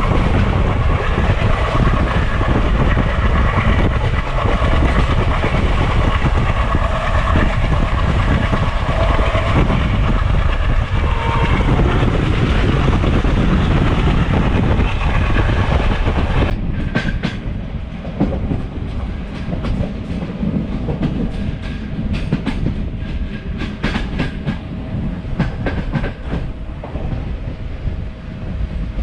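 Train passing close by, loud with a dense rumble and some steady tones. A little over halfway through it drops abruptly to a quieter run of sharp wheel clicks over the rail joints, with a faint steady tone beneath.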